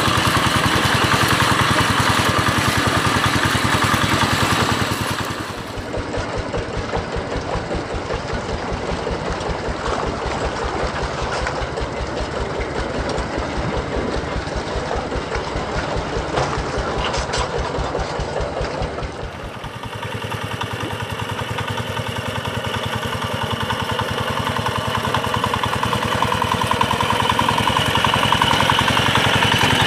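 Two-wheel hand tractor's single-cylinder diesel engine running steadily with a fast, even chugging while it ploughs a flooded rice paddy. The sound changes abruptly twice, about five and about nineteen seconds in.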